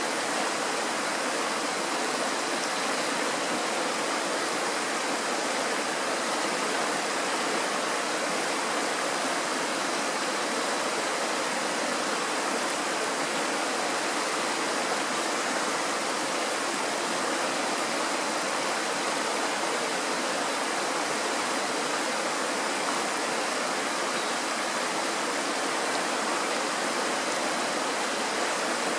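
Mountain stream rushing over rocks in small white-water rapids: a steady, unbroken rush of water.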